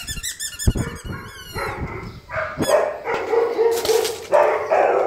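Akita barking and yipping in a run of short calls that become longer and denser in the second half, with a couple of low thumps about a second in.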